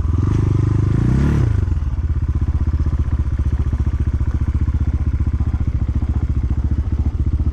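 Single-cylinder dirt bike engine revved briefly in the first second or so, then idling steadily with an even, rapid beat.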